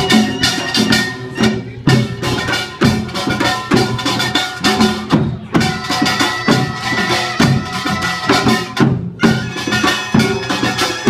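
Korean samulnori percussion, kkwaenggwari and jing gongs with janggu and buk drums, playing a dense, rapid rhythm. The gongs ring bright and clanging over the drum strokes.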